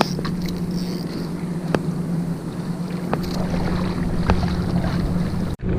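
Steady low drone of a motorboat engine on the water, with wind on the microphone and a few faint clicks; the sound drops out for an instant near the end.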